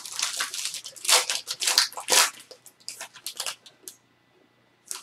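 Crinkling, crackling plastic or foil card-pack packaging being handled and torn as trading cards are unwrapped, in a run of rustles that dies away about a second before the end.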